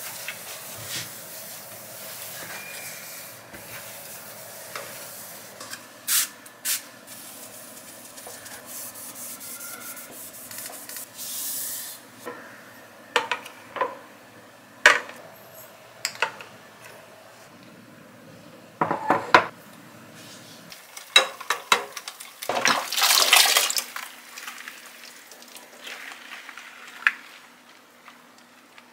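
Glass spice jars and a stainless steel wire rack being handled and set down, with scattered clinks and knocks. Near the end, water splashes as a stainless wire basket is lifted about in a bowl of soaking water in a sink.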